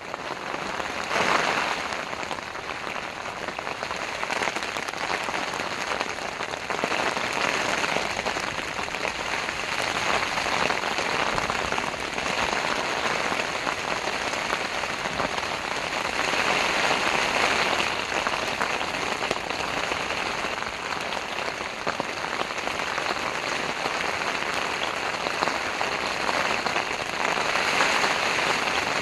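Heavy rain pelting a Bunker Dome tent's fabric, a dense steady patter that swells and eases every few seconds with the strong wind.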